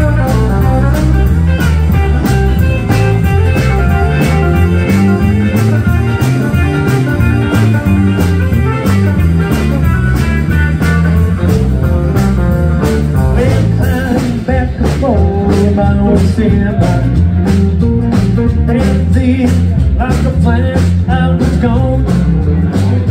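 Live country band playing: electric guitars over bass and a drum kit keeping a steady beat.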